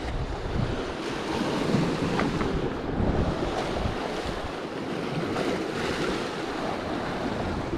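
Sea surf washing and breaking over rocks close below, a steady rushing with surges, and wind buffeting the microphone.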